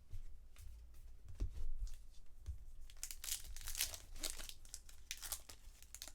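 A few soft knocks, then from about three seconds in a trading-card pack's foil wrapper crinkling and tearing as it is opened.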